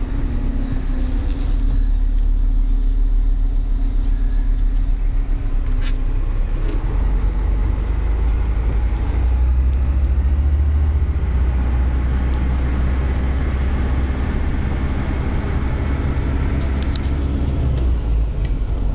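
Sisu truck's diesel engine running under way, heard inside the cab as a steady low drone with road noise; the engine note shifts and grows heavier about halfway through. A couple of faint clicks are heard in the cab.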